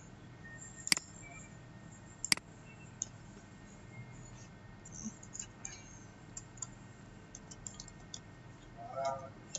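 Two sharp computer-mouse clicks about a second and a half apart, followed by a run of light, scattered keyboard taps as a short name is typed.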